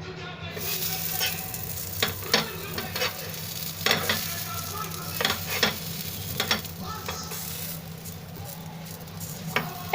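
Fries sizzling in hot oil in a pan, with sharp clicks and taps every second or so as pieces go in or a utensil touches the pan.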